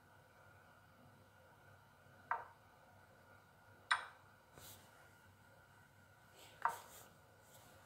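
Chess app's piece-move sound effect: three short, sharp wooden-sounding clicks spaced a second or more apart, with a couple of fainter ones, each one a move being played on the board.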